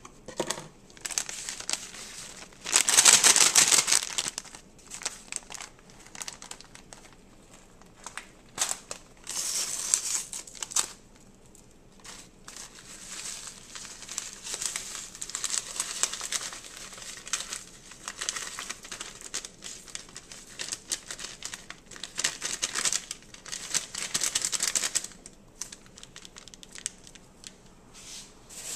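Envelopes of Lipton beefy onion soup mix crinkling and tearing as they are opened and shaken out, in several bursts of rustling, the loudest about three seconds in.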